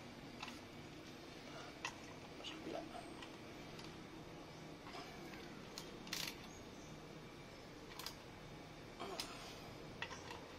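Scattered light clicks and taps from the plastic heat shield of a scooter exhaust as it is handled and fitted over the muffler, with the sharpest click about six seconds in. A faint steady hum runs underneath.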